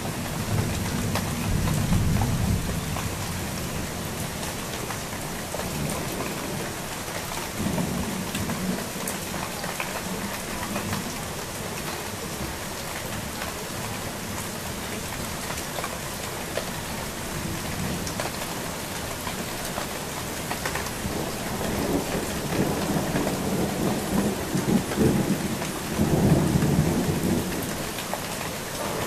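Steady rain falling through a thunderstorm, with low thunder rumbling about two seconds in and again near eight seconds, then swelling into a longer, stronger rumble over the last several seconds.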